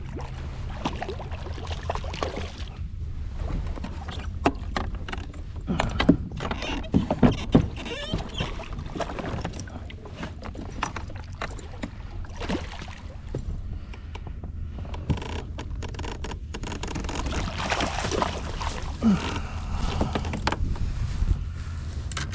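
Knocks and rattles of gear being handled in a fishing kayak on the water, busiest about six to eight seconds in, over a steady low rumble.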